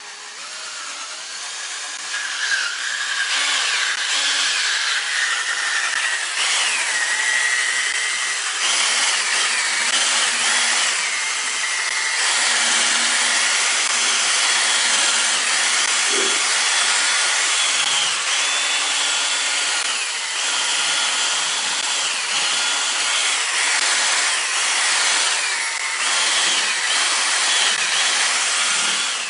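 Cordless drill spinning a buffing pad against a plastic headlight lens to polish off oxidation. The motor's whine builds over the first few seconds, then rises and dips in pitch as the speed changes, over a steady rubbing hiss.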